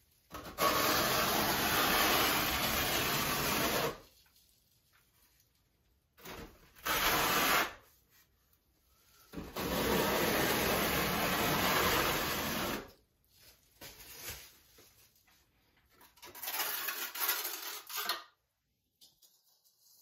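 Quarter-inch square-notch metal trowel scraping through a wall coat of white glass-tile thinset, combing it into ridges. Four scraping strokes, the first and third each over three seconds long, with short pauses between.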